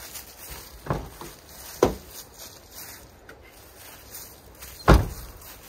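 Three dull thuds of split firewood pieces being dropped or tossed, about a second apart and then three seconds later, the last one the loudest.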